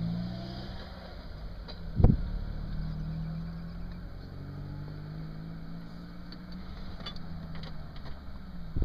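A vehicle engine idling steadily, with one sharp knock about two seconds in.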